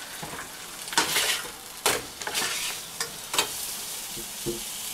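Fish fillets sizzling steadily in a nonstick frying pan, with three sharp knocks of a utensil against the pan spread through the sound.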